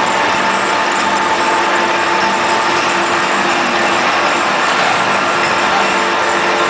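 Wine bottle washing machine running with a steady, loud mechanical drone and a few held hum tones.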